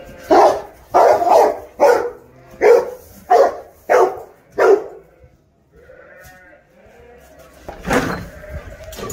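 American Staffordshire terrier barking: a quick run of about eight barks over the first five seconds, then another bark near the end.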